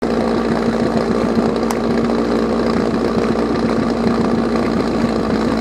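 A portable fire pump's small engine running steadily at a constant speed.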